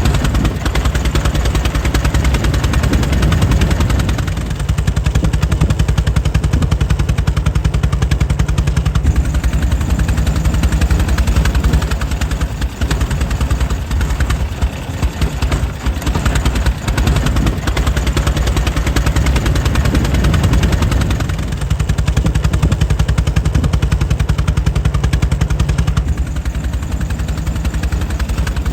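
Air-cooled 1904 Mitchell engine running steadily, a fast, even chain of sharp exhaust beats with a deep low rumble, swelling and easing slightly in level now and then.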